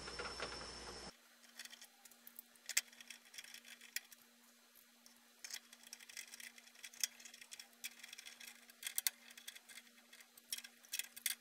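Faint, irregular clicks and ticks of a hand nut driver turning screws into the plastic air-cleaner base on a small Briggs & Stratton engine, over a faint steady hum.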